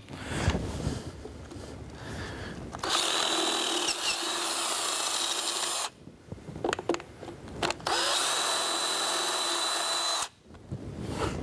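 Hand-held power drill boring out a pilot hole in an aluminium intake manifold with a letter-R bit, in two steady runs of about three seconds each with a whine, separated by a short pause with a few clicks. Some handling noise comes before the first run.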